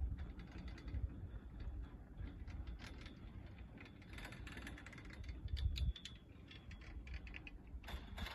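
Riding an SLI double chairlift: a steady low rumble of wind and ride noise, with scattered light mechanical clicks and rattles. The clicks cluster about three to five seconds in and again near the end.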